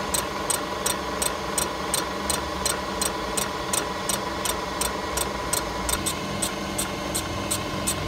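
Milling machine decking a cast iron engine block with a carbide button cutter, running over a steady hum with a sharp tick repeating about three times a second as it cuts. The cut is going cleanly: a nice tidy cut.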